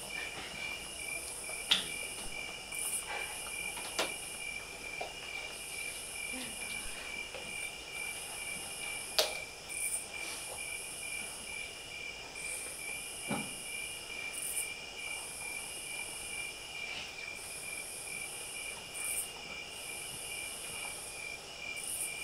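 Crickets chirping in a steady, evenly pulsing high trill, with a higher insect buzz that comes and goes in stretches. A few sharp knocks cut through, the loudest about two and nine seconds in.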